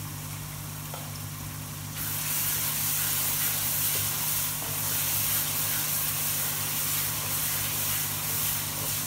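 Spiced onion-tomato masala frying in oil in a steel kadhai, sizzling as it is stirred with a wooden spoon; the sizzle gets louder about two seconds in. A steady low hum runs underneath.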